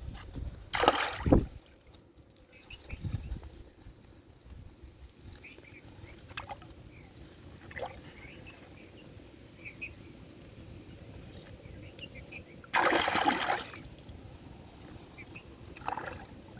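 Water splashing in three bursts: one about a second in, a longer one about three-quarters through and a short one near the end. Faint short bird chirps come between them.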